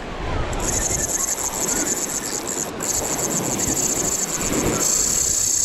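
Spinning reel's drag buzzing in a fast, even stream of ticks as a big mackerel of about 30 kg runs and takes line. The buzz breaks off briefly near the middle and is loudest near the end, over a low wash of water and wind.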